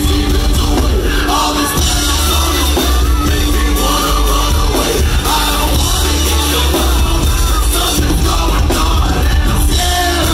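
Loud live band music through a club's sound system: heavy bass and drums, with a singer's voice over them.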